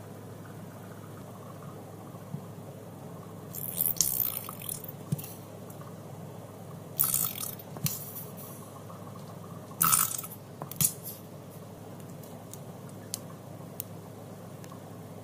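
Plastic bottles squeezed and handled while liquids are dispensed into a plastic squeeze bottle: a few short bursts of plastic and squirting noise, the loudest about four, seven to eight and ten seconds in, with a couple of light clicks near the end. A steady low hum runs underneath.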